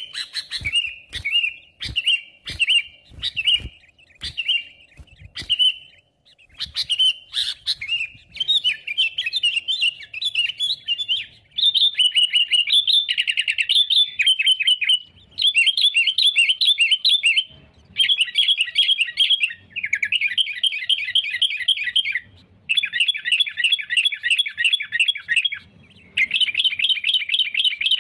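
Sooty-headed bulbul (kutilang) singing lively. The first few seconds are short, separate chirps mixed with sharp clicks; from about seven seconds in come rapid chattering trills in bursts of two to three seconds with short pauses.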